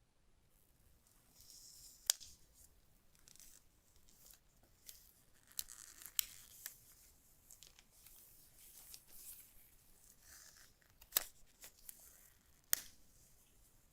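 Keyboard packaging being handled and opened by hand: rustling and tearing with scattered sharp clicks, four of them standing out.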